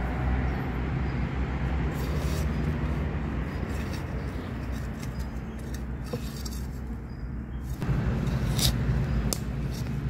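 Hands digging termite mushrooms out of sandy soil and dry leaf litter, with scattered crackles and clicks of leaves and twigs, over a steady low rumble.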